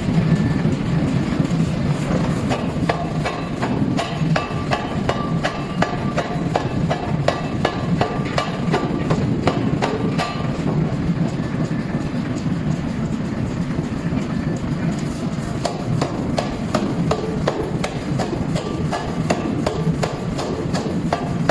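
Power forging hammer striking a red-hot steel billet on the anvil in a continuous series of heavy blows, over a steady low rumble, as the billet is upset into a bearing-ring blank.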